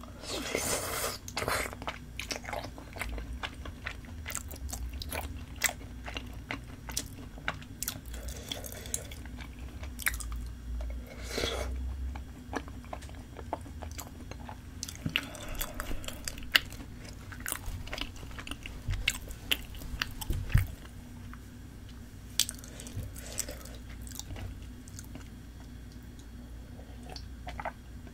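Close-miked chewing of spicy tteokbokki (chewy rice cakes in sauce): wet smacking and clicking mouth sounds, thinning out in the last few seconds.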